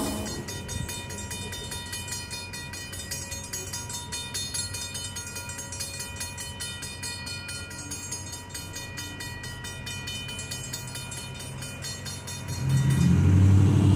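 Mechanical railroad crossing bell ringing with a steady run of evenly spaced strokes. About twelve seconds in, a car engine rises loudly as the car pulls away across the tracks.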